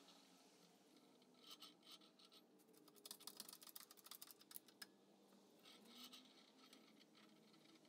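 Faint metallic clicking and scraping from a small Buffalo bench vise as its threaded screw is turned in by the sliding T-handle. The clicks come thickest between about two and a half and five seconds in, with a few softer ones before and after.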